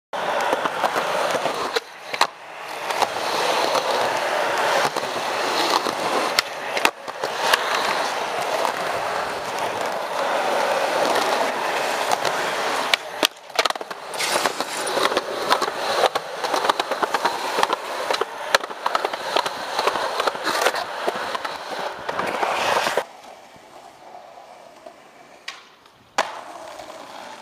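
Skateboard wheels rolling over concrete, with repeated sharp clacks and knocks of the board on the ground. The rolling is loud for most of the stretch and much quieter for the last few seconds.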